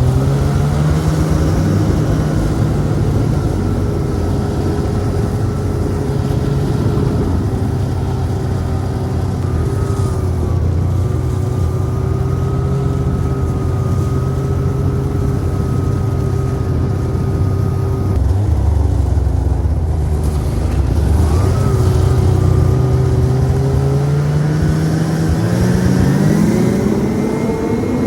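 Snowmobile engine running steadily under way, its pitch wavering about two-thirds through and then rising as it revs up near the end.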